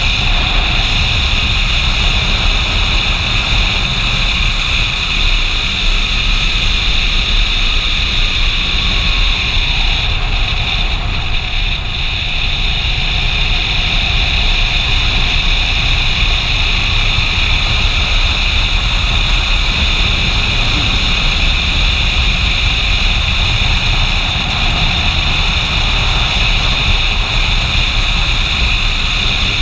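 Motorcycle running at road speed, its engine under heavy wind noise on a helmet-mounted microphone. The engine note drops briefly about ten seconds in, as if easing off, then steadies again.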